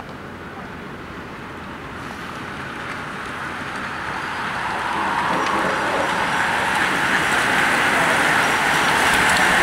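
A pack of road-racing bicycles approaching and passing close by: a rush of tyres on asphalt and wind that builds steadily and is loudest as the riders go past near the end.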